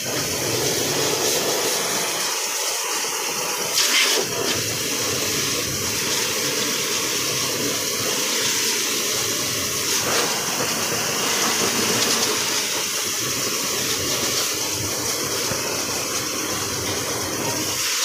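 Pressure-washer jet spraying water steadily over a truck's engine and chassis, hissing and splattering on the metal, louder for a moment about four seconds in.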